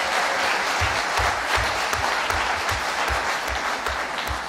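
Audience applauding in a hall: a dense patter of clapping, with some nearby claps landing as low thuds about two and a half times a second.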